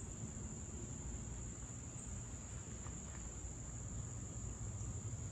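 Steady, high-pitched insect chorus: one continuous, unbroken drone, with a low rumble underneath.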